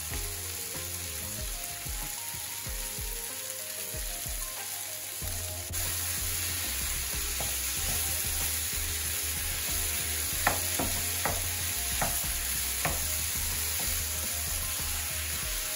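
Prawn masala sizzling in a non-stick frying pan while it is stirred with a wooden spatula. A few sharp knocks of the spatula against the pan come in the last third.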